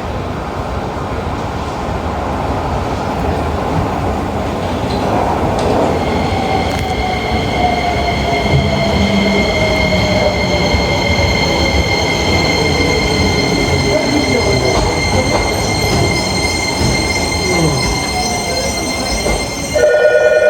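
A train running into an underground station: a steady rumble of wheels, a motor tone falling in pitch as it slows, and a steady high squeal from about six seconds in. Near the end a loud station emergency bell starts ringing abruptly.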